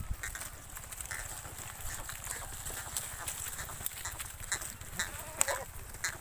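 A goat bleating once, a short falling call about five and a half seconds in, over scattered clicks and rustling.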